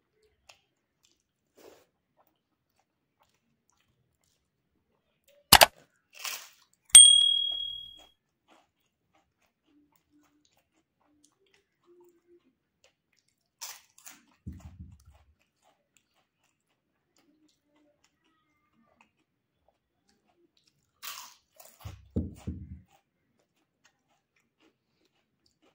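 Papad crunching and chewing close to a lapel microphone, in short bursts between long quiet stretches. About seven seconds in, a sharp clink on a steel dish rings out for about a second; it is the loudest sound.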